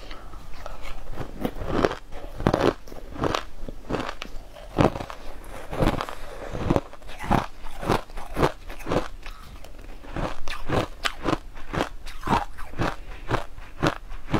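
Chewing and crunching mouthfuls of crushed, coloured ice: a fast, irregular run of crisp crunches.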